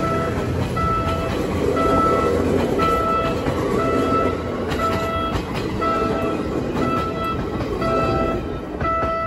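Background music: a repeating two-note figure, alternating a low and a high note about twice a second, over a steady rumble of traffic noise.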